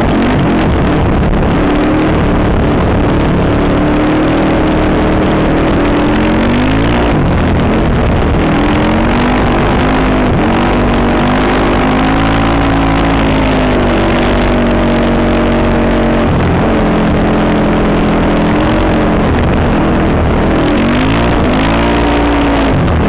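Honda TRX450R ATV's single-cylinder four-stroke engine being ridden hard, its note rising and falling in pitch with throttle and gear changes, with quick rev blips near the end.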